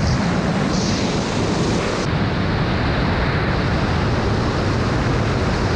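Steady rushing wind noise buffeting the microphone, the airflow of a wingsuit flight at speed.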